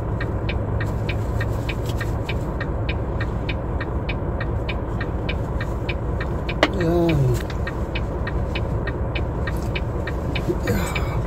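Semi-truck diesel engine idling, heard from inside the cab as a steady low rumble, with a regular light ticking at about four ticks a second. A single short hum from a man's voice comes about seven seconds in.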